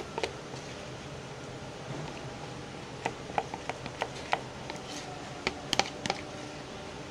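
Scattered sharp clicks and taps of glue-and-detergent slime being mixed, bunched in clusters about halfway through and again near the end.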